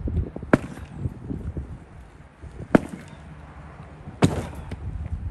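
Three sharp, hard blows of a sledgehammer striking a sofa bed's frame, spaced about two seconds apart.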